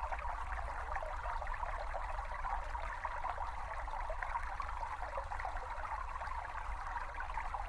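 A small brook babbling steadily, water trickling and burbling over stones, with a low rumble underneath.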